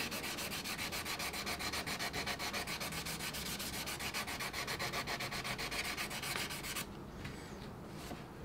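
Quick, rhythmic back-and-forth hand sanding of a plastic motorcycle fairing panel's edge with a small abrasive block. The strokes stop about seven seconds in.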